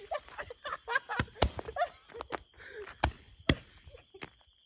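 A handheld roman candle (fire-spitting firework) shooting fireballs, giving several sharp pops at irregular intervals, two of them close together a little after a second in.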